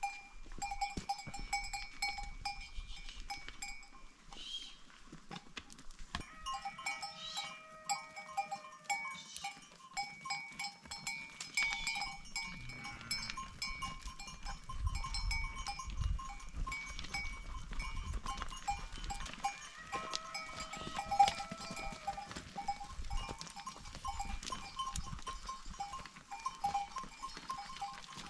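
A flock of sheep on the move, with bells on the animals clinking and tinkling steadily. Two long bleats, one about six seconds in and another about twenty seconds in.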